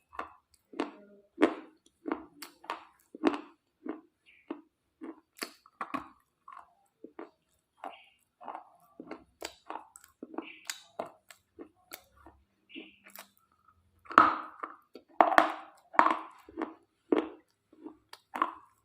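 Brittle slate pieces crunching and cracking in a steady run of short, sharp crunches, a few each second, with a louder cluster of crunches about three-quarters of the way through.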